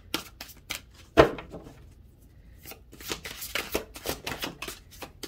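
A deck of cards being shuffled by hand: a single sharp knock about a second in, then a quick run of riffling card clicks over the last couple of seconds.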